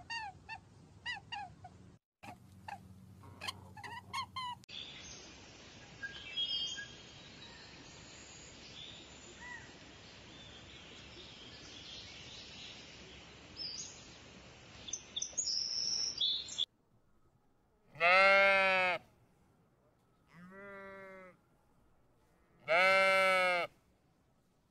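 Domestic sheep bleating three times, each call about a second long, the middle one quieter. Before them comes a run of short high squeaks, then a stretch of outdoor ambience with a few faint bird chirps.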